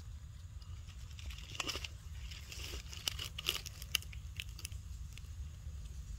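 Dry crackling and crunching as a baby macaque grips and mouths a thin vine among dry leaf litter, with a quick run of crisp clicks in the middle, over a low steady rumble.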